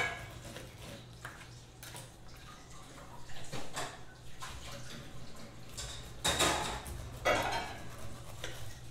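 Serrated bread knife sawing down through a pineapple's rind in short, irregular scraping strokes, two louder ones in the second half, with the knife knocking against the cutting board. A steady low hum runs underneath.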